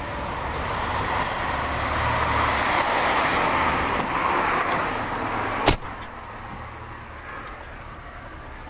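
A car driving: its engine and road noise swell and then die down, with one sharp click a little past the middle.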